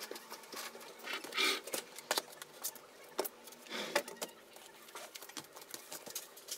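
Scattered light clicks and soft rustling scuffs, three of them louder, over a faint steady hum.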